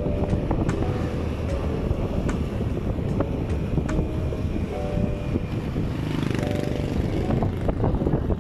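Wind buffeting the microphone of a moving motorcycle, with its running engine and road noise underneath and scattered small clicks and rattles.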